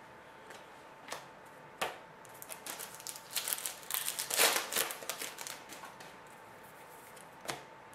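Hockey trading cards and a foil card pack being handled: a few sharp snaps and flicks of cards, with a few seconds of crinkling and rustling in the middle.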